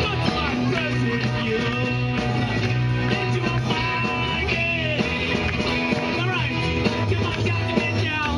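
A live rock band playing through a PA: electric guitars, electric bass and a drum kit keeping a steady beat, with a sliding lead line on top.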